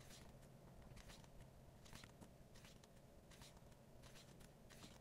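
Faint rustles of glossy photobook pages being turned by hand, a few soft page flips spread through otherwise near-silent room tone.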